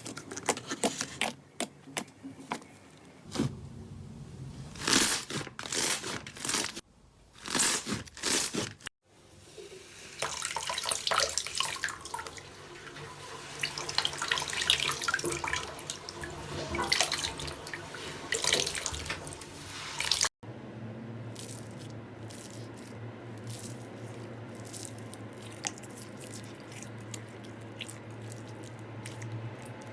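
Slime being squeezed, poked and stretched by hand: wet, sticky clicks and crackles, denser in the middle. Near the end it is quieter, with fine crackles over a steady low hum.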